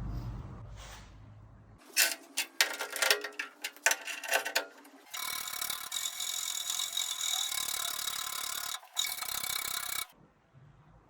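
Several seconds of sharp metallic clicking and clattering, then a steady buzzing hiss of an AC TIG welding arc on aluminium air-conditioner tubing for about five seconds, broken once briefly before it stops.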